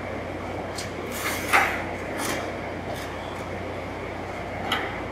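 Tile pieces being picked up and handled at a workbench: a few light knocks and clatters, the loudest about a second and a half in, over a steady low hum.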